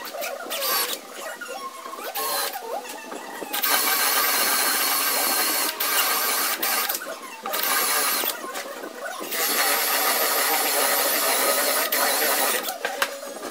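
Cordless drill with a hinge-boring bit cutting cup holes for concealed hinges into a wooden cabinet-door frame. It runs in several bursts of a second or two with short pauses, and the longest run is about three seconds near the end.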